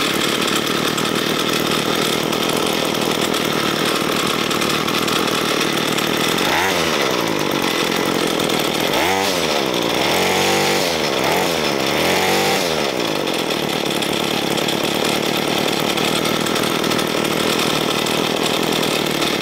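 Ryobi ES30 string trimmer's small two-stroke engine running steadily on the bench during idle-mixture adjustment of its freshly cleaned carburetor. Around the middle it revs up and back down a few times, and it stops right at the end.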